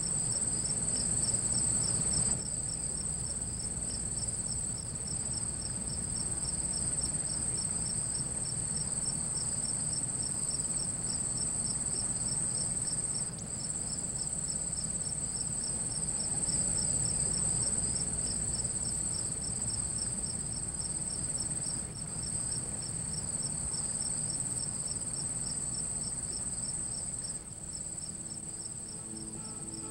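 Evening chorus of crickets and other night insects: a continuous high trill with a regularly pulsing chirp under it, over a low steady hum.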